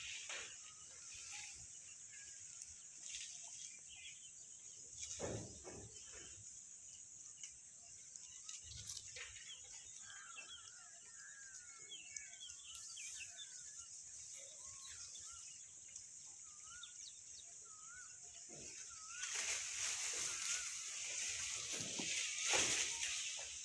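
Outdoor ambience: a steady high-pitched insect drone, louder from about nineteen seconds in, with scattered small bird chirps and a few dull thumps.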